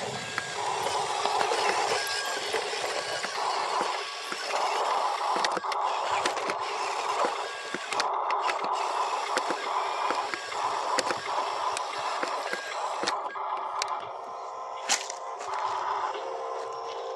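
Electric motors and gearboxes of a radio-controlled Huina model dump truck whining in repeated spurts, switching on and off every second or two as it drives and works its tipping bed. Scattered sharp clicks and crackles come through, one louder click near the end.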